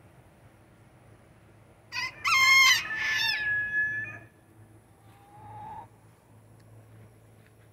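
Rooster crowing once, about two seconds in: a loud call of about two seconds that ends on a long held note. A fainter, lower sound follows briefly about a second later.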